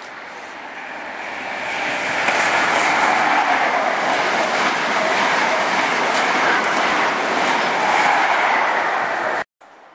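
Class 43 High Speed Train passing through a station at speed: the rush of wheels and air builds over the first two seconds as it approaches, stays loud and steady as the coaches go by, then cuts off suddenly near the end.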